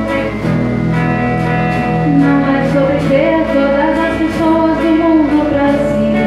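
Live guitars playing steady strummed chords, with a voice singing a wavering melody over them from about two seconds in.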